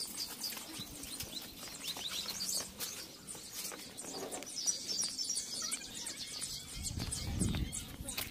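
Small birds chirping and twittering, faint and continuous, with a soft low rumble near the end.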